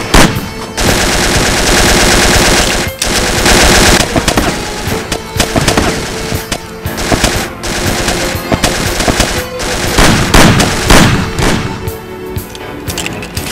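Gunfire in a shootout: a dense, rapid run of shots starting about a second in and lasting some two seconds, then more shots in ragged bursts, louder again near the end. Music plays underneath.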